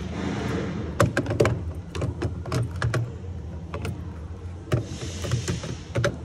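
A run of irregular sharp clicks and knocks, starting about a second in and loudest near the start, over a low steady hum.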